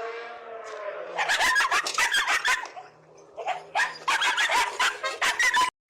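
A pet animal calling: one drawn-out, wavering cry, then two runs of quick, sharp yelps that cut off suddenly near the end.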